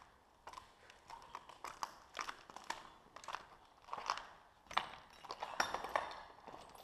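Footsteps crunching and clinking over broken glass, plaster and wood debris on a littered floor, an uneven run of crunches that grows busier and louder in the last couple of seconds.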